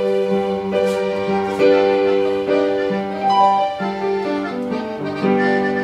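Electronic keyboard playing a romantic ballad in held chords that change every second or so.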